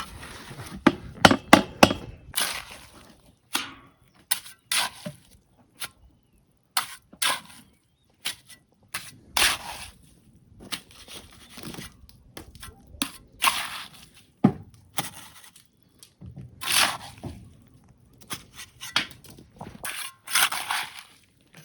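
Irregular knocks, bangs and short scraping rasps from building work, with quiet gaps between them.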